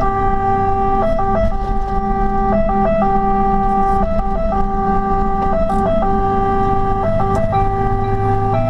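Fire engine's two-tone siren heard from inside the cab, switching back and forth between a low and a higher note, with the truck's engine rumbling underneath.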